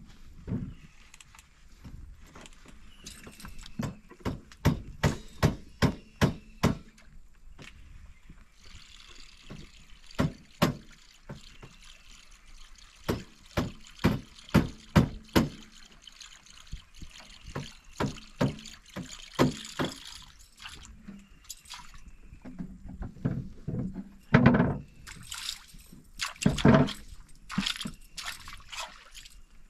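Fishing rod and reel being worked from a wooden boat while retrieving a lure: runs of sharp clicks, about two a second, with a hiss of line at times. Two heavier knocks come near the end.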